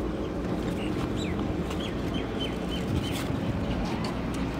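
A bird giving a run of short high chirps, each dropping in pitch, about one to three seconds in, over a steady low rumble.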